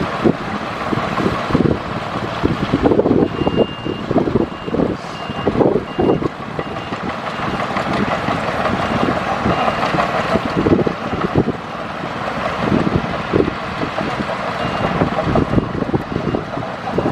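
Diesel engine of heavy earthmoving machinery running, with irregular knocks and clanks, while a reversing alarm beeps repeatedly from about three seconds in.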